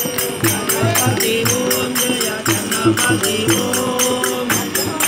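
Devotional bhajan: a group of men singing together to tabla and hand drum, with jingling metal percussion keeping a steady beat of about four to five strikes a second.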